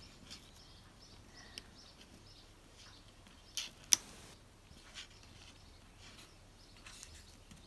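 Quiet room with a few light clicks and taps from hands handling small paper card pieces on a craft mat. The sharpest tap comes about four seconds in, just after a smaller one.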